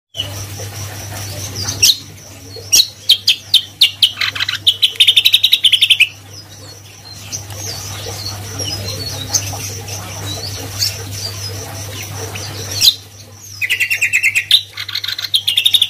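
Caged cucak kombo songbird singing vigorously: two loud runs of fast repeated high whistled notes, a few seconds in and again near the end, with softer scattered chirps between.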